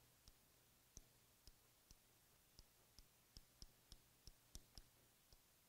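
About a dozen faint, irregularly spaced clicks of a stylus tip tapping on the glass of an interactive whiteboard screen while a word is written.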